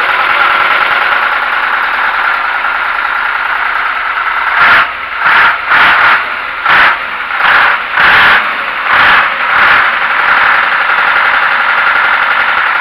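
YaMZ-238 V8 diesel of a Ural truck running cold just after a winter start. About five seconds in it surges eight times in quick succession, about two-thirds of a second apart, as the throttle is blipped, then settles back to steady running.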